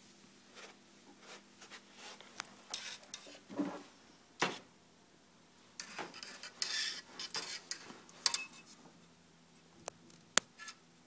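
Handling noises: scattered light clicks, knocks and rattles with some rustling and scraping, as small objects and fishing gear are moved about. A sharp click a little over ten seconds in is the loudest.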